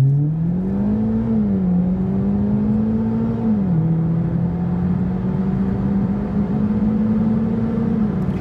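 Chevy Cruze hatchback's turbocharged four-cylinder engine at full acceleration, heard from inside the cabin. The engine note climbs in pitch, drops twice as the transmission upshifts, about a second and a half in and again about three and a half seconds in, then climbs slowly again.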